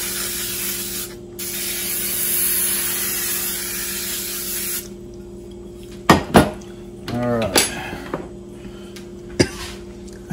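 Aerosol can of Baker's Joy flour-and-oil baking spray hissing as it coats a baking dish, in one long spray with a brief break about a second in, stopping about five seconds in. A few knocks of the can and dish being handled follow.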